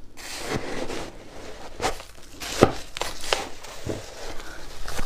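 Ice being bitten and crunched close to the microphone: a run of sharp cracks, about five, over a crackling, crunching haze.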